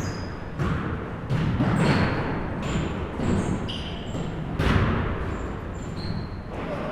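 Basketball bouncing on a gym floor, several separate echoing thuds, the loudest a little under five seconds in. Short high squeaks come and go between the bounces, typical of sneakers on the court.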